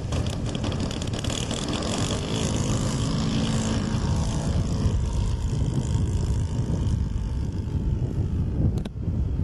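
Engine and propeller of a radio-controlled Edge 540 aerobatic model plane running at power as it takes off and climbs away, mixed with heavy wind noise on the microphone. A brief break comes near the end.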